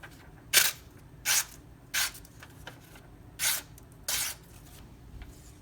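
Knife blade of M390 steel drawn along a leather strop loaded with white compound, five short, hissing strokes at uneven spacing.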